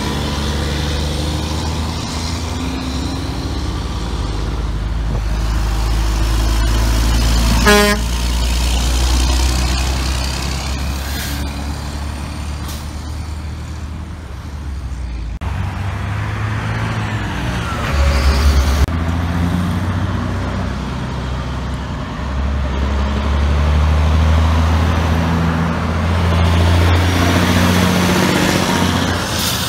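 Heavy diesel dump trucks passing one after another at highway speed, their engines swelling and fading as each goes by. A short horn toot sounds about eight seconds in.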